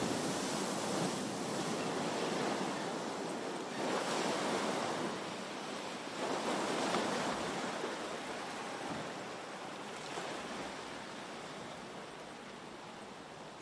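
Spray falling back and waves sloshing and washing around a large test basin after the splashdown of the Orion crew capsule test article. There are surges about four and six seconds in, and the churning slowly dies away.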